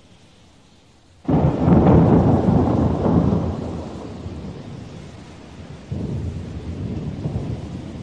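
Thunder: a sudden loud clap a little over a second in that rumbles away over a few seconds, then a second rumble about six seconds in, over a steady hiss of rain.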